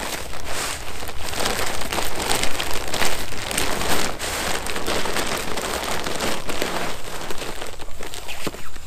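Continuous close rustling and crinkling of material being handled, building up at the start and easing off near the end.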